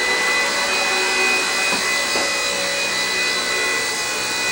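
WLtoys V931 AS-350 RC helicopter's electric motors and rotors running steadily in flight: an even whirr with a high whine.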